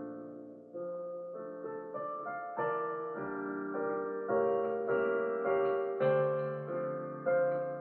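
Digital piano playing a lyrical passage of chords and melody, each chord struck and left to ring at a steady pulse of about one every 0.6 seconds. It grows louder in the second half.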